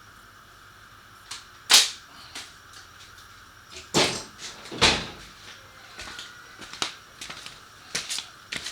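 Irregular sharp clicks and knocks of hand tools and metal motorcycle exhaust parts being handled while the exhaust is unbolted, a dozen or so in all, the loudest a little under two seconds in.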